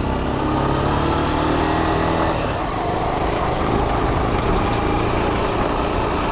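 Honda CG Titan motorcycle's single-cylinder engine running close by at a steady speed, its pitch holding level for the first couple of seconds and then sinking under a steady rush of road and wind noise.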